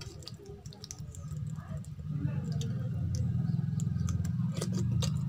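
Wet clicking and squishing of rice and kadhi being mixed by hand on a glass plate, then eaten. About two seconds in, a louder low rumble sets in and continues.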